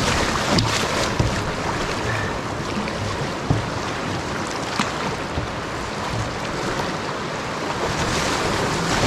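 Steady rush of river rapids splashing around a canoe, with a few sharp knocks mixed in.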